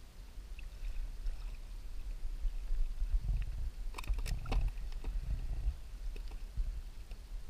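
Low, surging rumble of water and wind around a sit-on-top kayak at sea, heard close on the mounted camera. A brief cluster of clicks and knocks comes about four seconds in as the rod and metal jig are handled and the lure is brought aboard.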